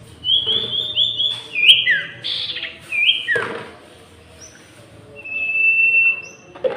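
Sirtu (cipoh, iora) songbirds singing loud clear whistles back and forth. There is a quick run of short repeated notes, then a few falling notes, and later one long held whistle.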